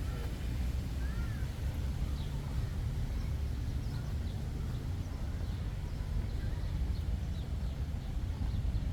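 Street ambience: a steady low rumble with faint, scattered chirps of small birds over it.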